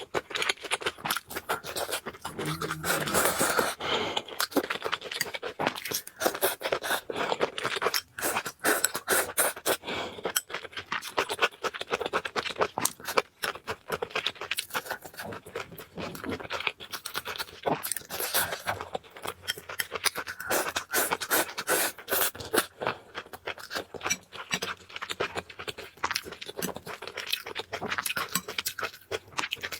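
Close-miked mukbang eating sounds: dense, rapid clicking, crunching and scraping, as food is chewed and utensils work against the dish.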